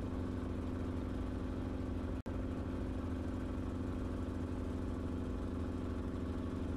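Enstrom helicopter's engine and rotor drone, steady and unchanging, heard from inside the cabin. The sound cuts out for an instant about two seconds in.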